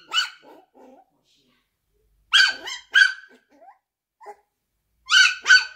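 Maltese puppy giving short, high-pitched yaps, about five in all, mostly in pairs a couple of seconds apart.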